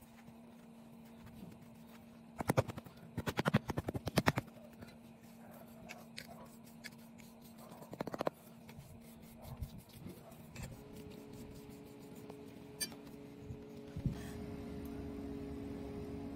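Moulding sand being pressed down by hand and scraped smooth with a small trowel in a wooden casting flask. A quick run of clicks and scrapes comes a few seconds in, a shorter one around the middle, then scattered light scrapes.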